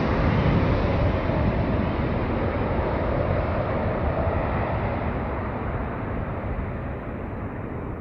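Jet engine noise from a Boeing 737 airliner landing and rolling out: a steady rush that slowly fades as the plane moves away, its higher part dying off first.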